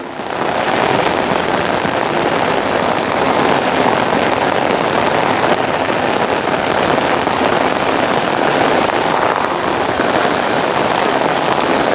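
Heavy rain pouring steadily and pattering on a wet paved road, swelling up within the first second and then holding even.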